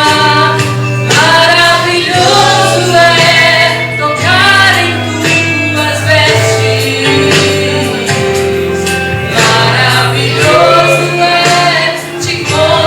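Gospel song: a woman singing over a sustained instrumental accompaniment.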